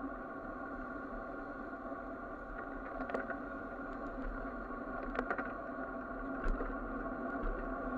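Road traffic heard from a bicycle's handlebar camera: a steady engine hum from the surrounding trucks and vans, with a few short clicks.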